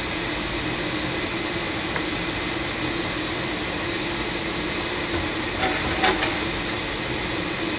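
Steady hum in the workshop, with a few light scrapes and taps about five and a half to six and a half seconds in as a carbon fiber stick spreads epoxy around the inside of a rocket body tube.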